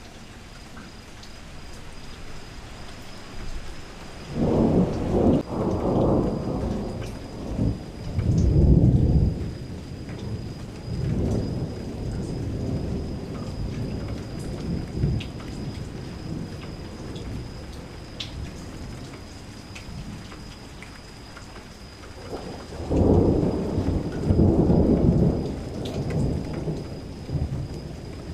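Steady rain with two rolls of thunder: a long rumble starting about four seconds in that swells in waves for several seconds, and another about twenty-three seconds in.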